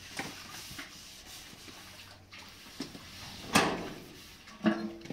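Scattered knocks and rubbing from objects being handled, the loudest knock about three and a half seconds in.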